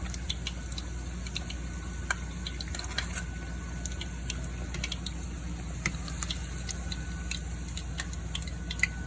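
Breaded chicken cordon bleu frying in hot oil: a steady sizzle with scattered sharp pops and crackles throughout.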